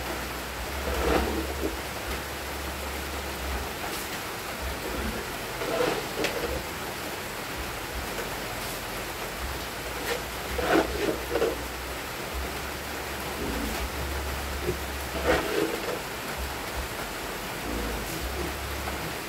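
Steady rushing hiss of water, with a short louder sound every four to five seconds.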